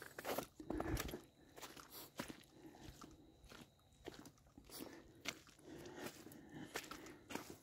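A hiker's footsteps crunching on a dirt fire road, at a steady walking pace of about two steps a second.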